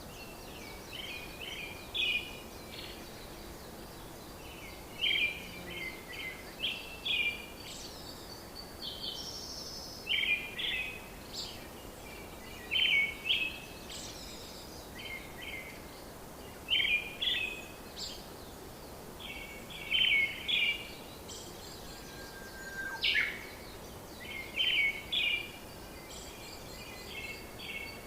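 Bird song: short chirping phrases repeated every second or two, over a steady background hiss.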